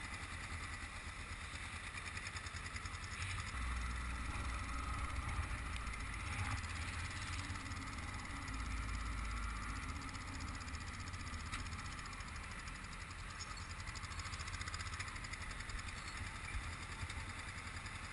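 Motorcycle engine running steadily while riding, with stronger low rumbles about four and nine seconds in.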